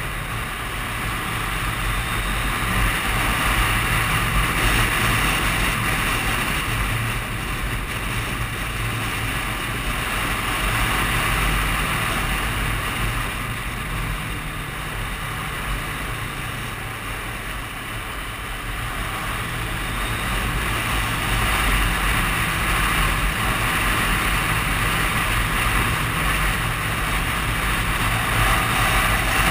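Suzuki Katana 750 inline-four motorcycle engine running at road speed through winding bends, its note rising and falling a little with the throttle, under a steady rush of wind on a helmet-mounted camera.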